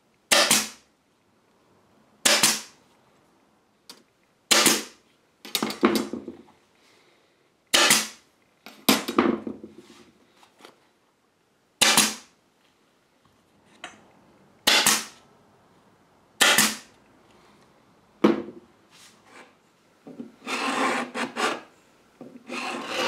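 Small upholstery hammer driving tacks through artificial leather into a wooden slip-seat frame: single sharp taps every second or two, sometimes a quick double tap. Near the end, a hand scraper rasping in short strokes along the inside of an oak chair rail.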